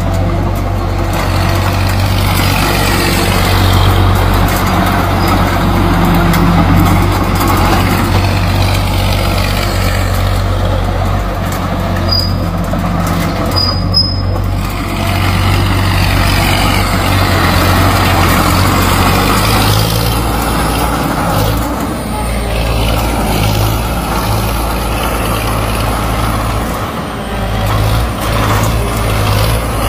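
Engine of a modified crawler tractor running steadily as the machine drives and turns; the engine note changes to a more pulsing one about twenty seconds in.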